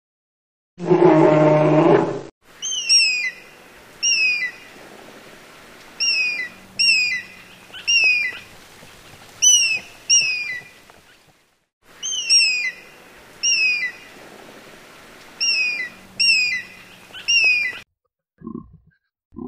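A brown bear gives a low, drawn-out moaning call in the first two seconds. Then a Steller's sea eagle calls over and over: short, high yelps that slide downward, in quick groups of two or three, with a short break about halfway through.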